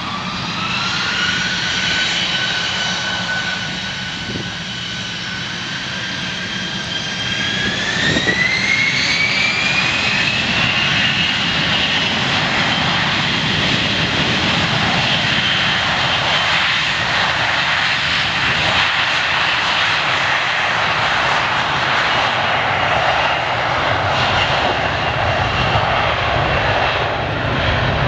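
Jet airliner's turbofan engines spooling up for takeoff. A whine climbs in pitch about half a second in and holds. It climbs again about eight seconds in as takeoff power is set, and then a steady, louder jet roar holds.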